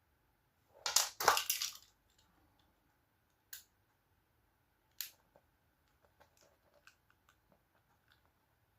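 A burst of loud crunching and crackling about a second in, from cable and tools being handled, then two sharp clicks a second and a half apart and a few faint ticks.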